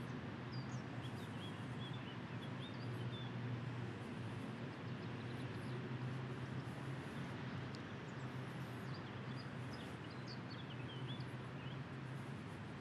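Outdoor park ambience: a steady low hum and background noise, with small birds chirping briefly about a second in and again near the end.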